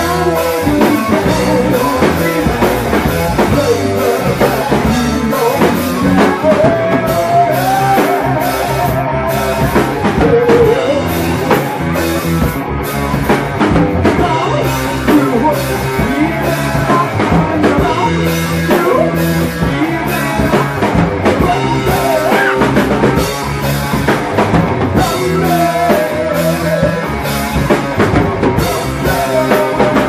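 Live rock band playing loudly: a steady drum-kit beat under electric guitar, with a voice singing at times.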